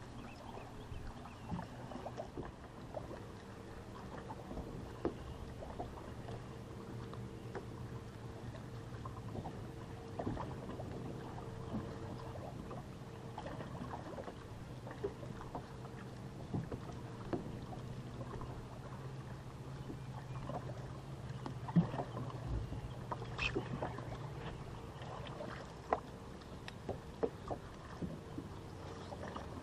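Electric trolling motor on a bass boat humming steadily, with light clicks and knocks on the boat scattered over it and one sharper knock about two thirds of the way through.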